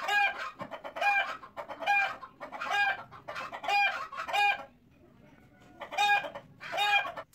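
A chicken clucking in a regular series of short, pitched calls, about one a second. The calls pause for about a second and a half, then come twice more near the end.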